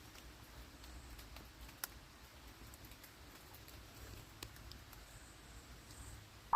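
Faint background noise with a low rumble and a few small sharp clicks, the clearest just under two seconds in and another about four and a half seconds in.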